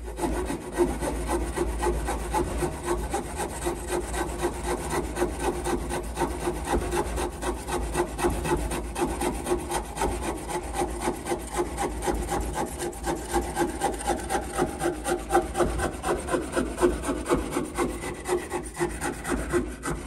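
Victorinox pocket-knife saw blade cutting a fairly green spruce branch held in a vise, in quick, steady back-and-forth strokes at about three a second. The saw cuts freely without binding.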